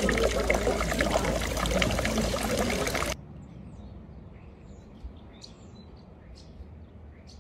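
Water streaming from a small fountain's frog-shaped spout, pouring and splashing. It cuts off suddenly about three seconds in, leaving quiet outdoor air with a few faint bird chirps.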